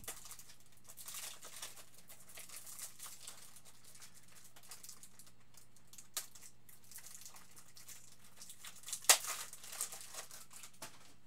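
Plastic wrapping crinkling and rigid plastic card top loaders clicking as they are handled, with a sharp click about nine seconds in. A faint steady hum runs underneath.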